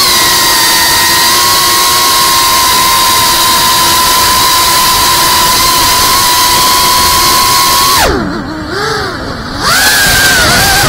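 FPV quadcopter's brushless motors whining at a steady high pitch during a long climb. About eight seconds in the whine drops sharply in pitch and loudness as the throttle is cut for the dive, wavers low, then rises again near the end as throttle comes back.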